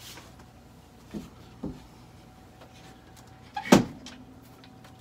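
Wooden picture frame being handled and taken down off the wall: two light knocks, then one sharp knock near the end as the frame bumps against the drywall.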